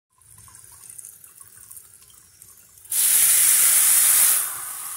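Kitchen faucet water pouring onto leafy greens in a plastic colander in a steel sink: a faint hiss at first, then a sudden loud rush of water about three seconds in that eases off near the end.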